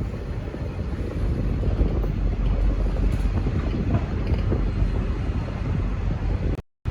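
V/Line N class diesel locomotive running, a steady low rumble with wind buffeting the microphone. The sound cuts out briefly near the end.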